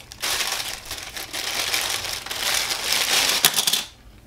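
Clear plastic packaging bag crinkling and crackling as it is handled and pulled off a new camera lens, with a few sharp crackles just before it stops about four seconds in.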